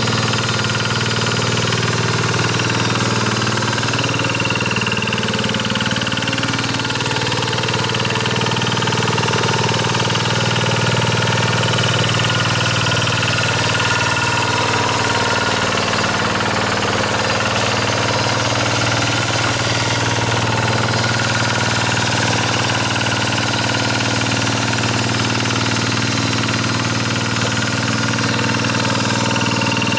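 Kubota single-cylinder diesel engine of a Quick rotary two-wheel hand tractor running steadily under load while it tills paddy mud, its pitch shifting slightly in the first few seconds.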